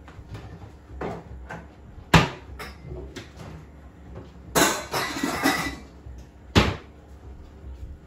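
Kitchen clean-up handling noises: a sharp knock about two seconds in and another near the end, with a stretch of clattering and rustling in the middle as things are moved about in the low cupboards.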